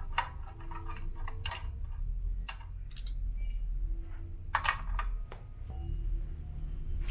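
Metal tools clicking and clinking irregularly, about half a dozen sharp clicks, while a wrench loosens the 10 mm belt-adjusting screws on an elliptical trainer.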